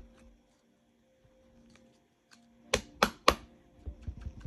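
Three sharp clicks in quick succession, about a quarter second apart, near the end, over a faint steady hum.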